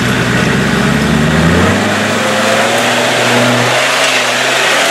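Land Rover Discovery Td5's five-cylinder turbodiesel revving hard under load as the truck climbs out of a muddy rut. The engine note rises over the first second or two, then holds high and eases off near the end.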